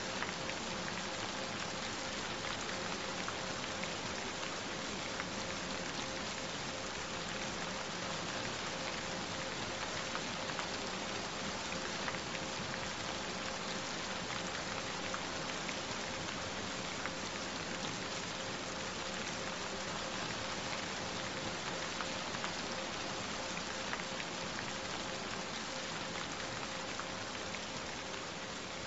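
Steady rain falling, with scattered individual drops ticking through it. A single steady tone sits quietly under the rain.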